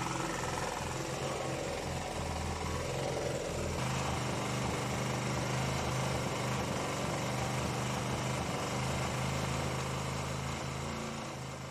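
The restored LT5000 portable generator's four-stroke gasoline engine running at a steady speed, an even hum whose tone shifts slightly about four seconds in.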